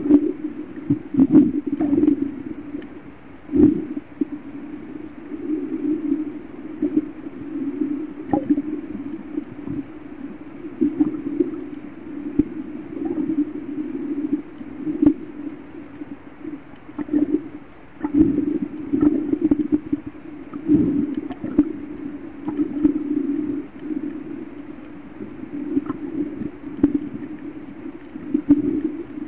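Muffled underwater rumble and gurgle of a scuba diver's breathing and exhaust bubbles, swelling and fading every few seconds, with a few short knocks.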